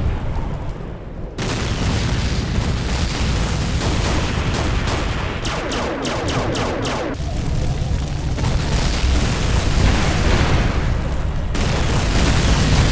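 Battle sound effects for an animated air fight: continuous booming explosions and gunfire, with a quick run of sharp shots around the middle.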